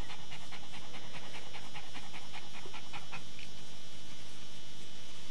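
A dog in labour panting rapidly during contractions, about five quick breaths a second, fading out about three and a half seconds in.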